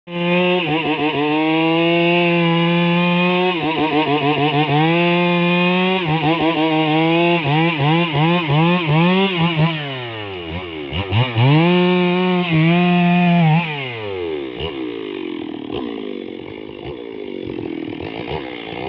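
Stihl two-stroke chainsaw running at full throttle in a cut, its engine pitch dipping and recovering again and again as the bar is pinched in the wood, bogging right down about ten seconds in. For the last few seconds it runs quieter and rougher.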